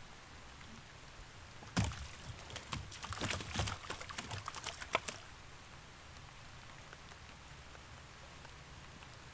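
Light rain falling steadily on river water. About two seconds in comes a loud thump, then three seconds of irregular knocks and slaps, which fit fish flopping against the floor of the boat.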